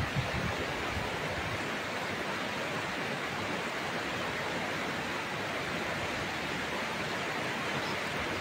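Steady rushing of a muddy river in flood, swollen by heavy rain.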